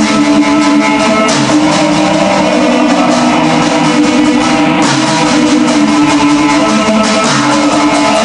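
Black metal song played by a band: dense electric guitars with drums running on without a break.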